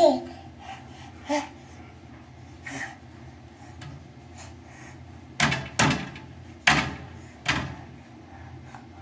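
A baby's short squeal at the start, then four hard thuds in the second half as the baby's palms slap against a mirror.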